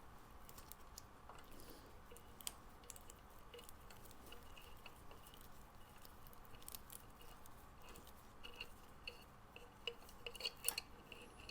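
Faint, scattered clicks and small metallic clinks of hand tools working on motorcycle front-end fittings, with a few sharper clinks about ten seconds in.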